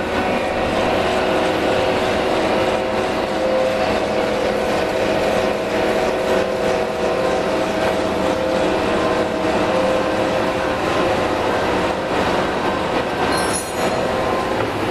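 T2120 deep hole drilling machine running under power: a steady mechanical drone with several held tones over it. A brief high-pitched squeal comes about thirteen seconds in.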